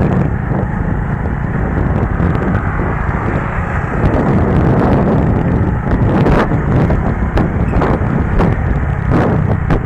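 Motorcycle under way: engine running with wind rumbling on the microphone, and a few sharp knocks in the second half.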